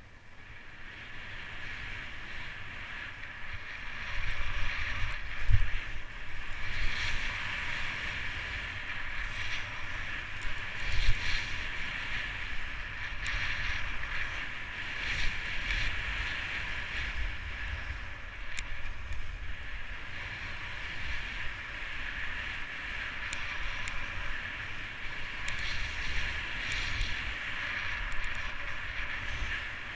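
Skis sliding and scraping over snow on a fast downhill run, with wind rumbling on the microphone. It grows louder about four seconds in.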